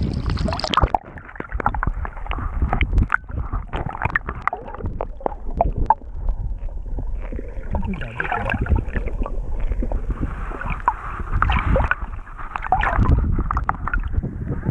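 Seawater sloshing and gurgling around a waterproof action camera as it bobs at and under the surface, muffled, with many small knocks and clicks of water against the housing.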